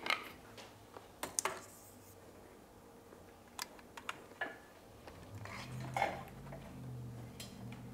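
Scattered light clicks and clinks from a clamp-on gooseneck grow light being unclamped and handled, its clamp and light heads knocking together. A faint low hum comes in about halfway through.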